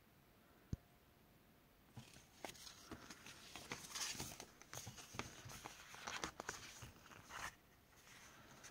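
A single sharp click, then from about two seconds in, paper rustling with many small ticks as the pages of a ring-bound paper planner and its sticker sheets are leafed through and handled. The rustling dies down near the end.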